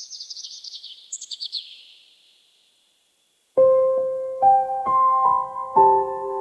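A bird's quick twittering call, a rapid run of chirps falling in pitch over about two seconds. After a short pause, piano music begins with a few slow, ringing notes.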